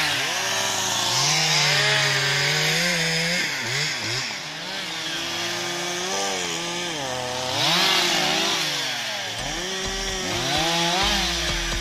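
Husqvarna 365 two-stroke chainsaw cutting through fallen branches, its engine revving up and dropping back again and again as the throttle is squeezed for each cut.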